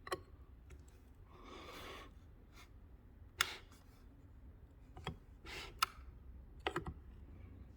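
A few scattered light clicks and taps of hands working at small parts on a speaker, with a faint steady hum of room tone underneath.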